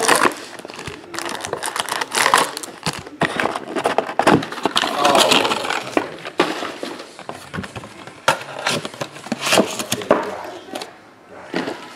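Hands opening a cardboard hobby box of trading cards and handling the foil-wrapped packs inside: rustling cardboard and foil with many sharp clicks and knocks as the lid comes up and the packs are set down on the table, easing off near the end.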